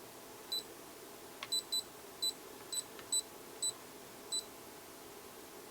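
Digital multimeter in EF (non-contact voltage detection) mode giving about eight short, high-pitched beeps at irregular intervals as it senses the AC field of a nearby power cord. The irregular beeping shows a weak, intermittent detection.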